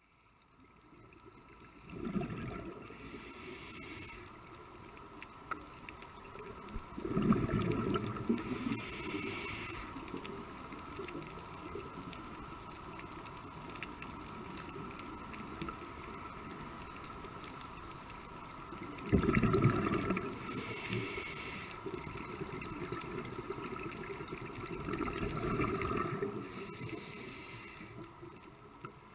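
Scuba diver breathing underwater through a regulator: four breaths, each a rushing gush of exhaled bubbles followed by a hiss of inhaled air.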